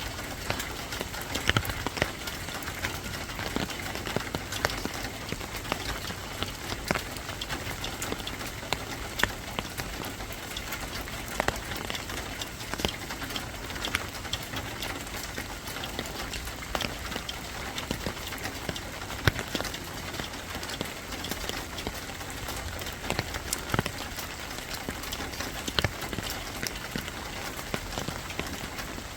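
Steady rain falling on a surface, with frequent sharp drop ticks scattered through the even hiss.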